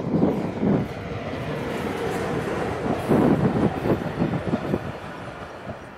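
SBB Cargo freight train (electric locomotive and covered freight wagons) rolling past: a steady rumble of steel wheels on rail with a repeated clatter of wheelsets, fading near the end.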